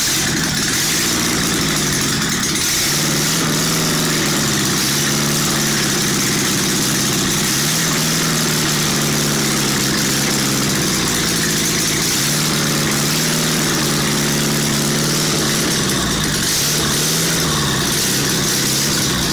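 Freshly rebuilt air-cooled Volkswagen Beetle flat-four engine (1600 cc cylinders and pistons on a 1300 block, sharper camshaft) running steadily and loud just after starting, its revs rising and falling several times.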